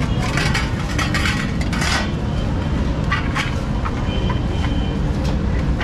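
Metal utensils clinking and knocking irregularly as fruit chaat is prepared, over a steady rumble of street traffic.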